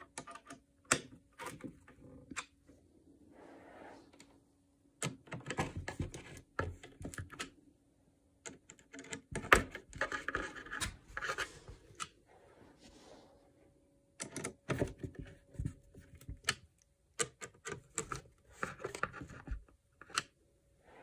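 Irregular clicks, scrapes and light knocks of a Phillips screwdriver and hands working on particleboard flat-pack furniture parts, in clusters with short pauses between them.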